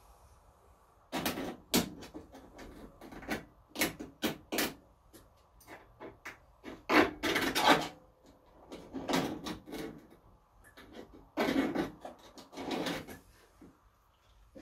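Metal scribe scratching along a sheet-steel repair patch, marking out its cut line. It comes as irregular clusters of short scratchy strokes with brief pauses between them.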